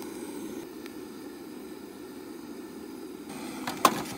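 Butane canister torch burning steadily as it is held to firewood. Near the end, a couple of sharp knocks as split logs are set into the metal grill.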